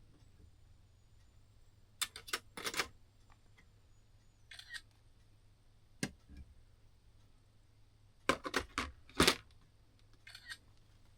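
Small metal clock-movement parts clicking and clinking as they are handled and set down, in short clusters of sharp clicks, with the loudest ones a little over two seconds in and again about eight to nine seconds in.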